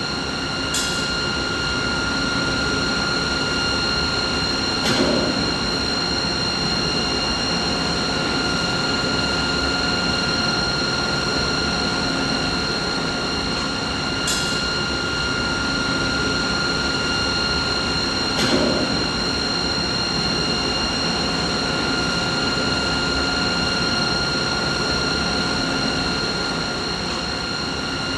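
Steady machine noise: a rushing hum with a high whine held at one pitch and its overtones, labelled a mid-frequency machine sound. A few clicks break through, two of them louder knocks, about five seconds in and again some thirteen seconds later.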